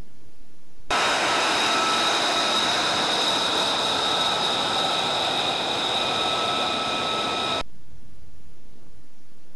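F-35B's F135 jet engine running on the ground: a steady rushing roar with a high turbine whine. It starts abruptly about a second in and cuts off abruptly near the end.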